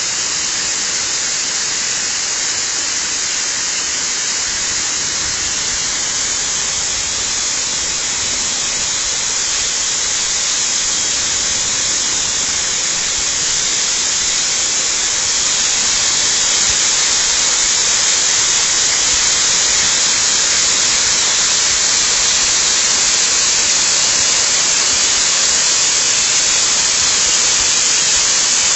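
Waterfall: the steady rush of falling water, a dense hiss strongest in the upper range, growing a little louder about halfway through.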